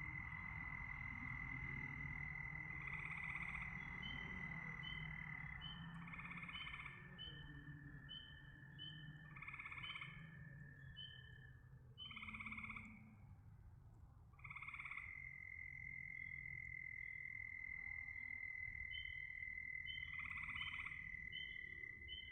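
Frogs calling: a loud croak every two to three seconds over a run of short quick chirps and a steady high trill. The trill drops out for a few seconds near the middle and then comes back.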